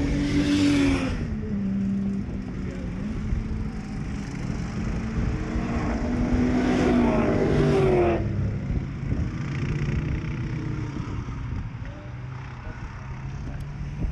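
Cars' engines revving on a race circuit, rising in pitch under acceleration and dropping back at gear changes, over a steadier engine drone. One long pull climbs steeply and breaks off about eight seconds in.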